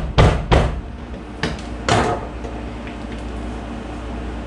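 Kitchen knife whacking into a frozen ear of sweet corn on a plastic cutting board: three sharp knocks in quick succession, then a few more about a second and a half in.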